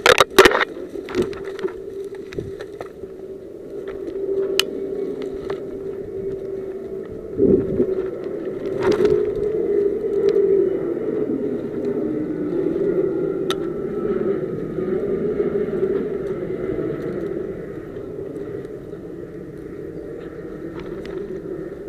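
A player moves through dense undergrowth: sharp snaps and clicks of twigs and brush, loudest at the very start, over a steady low drone.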